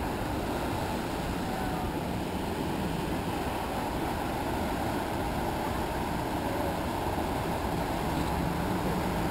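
Large ocean waves breaking and white water churning: a steady, even rush of surf noise with no single distinct crash.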